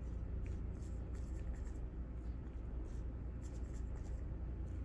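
Whiteboard marker scratching on a whiteboard in short, intermittent strokes as a servo-driven robot arm writes the digit 5, over a steady low hum.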